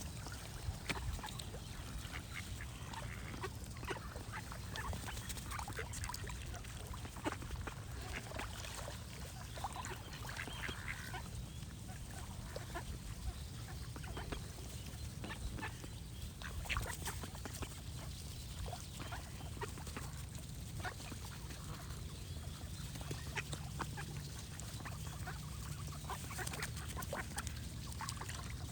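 Ducks quacking in short, repeated calls, with smaller birds singing in the background, over a steady low background noise.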